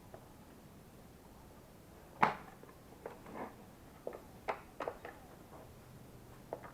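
Scattered clicks and knocks of hard parts of an LG bagless vacuum cleaner being handled during disassembly, with one sharp knock about two seconds in and a cluster of smaller clicks over the next few seconds.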